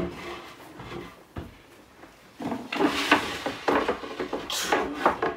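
Varnished wooden boards being handled, with knocks and scraping of wood on wood. There is one knock at the start, a lull, then a run of clunks and scrapes through the second half.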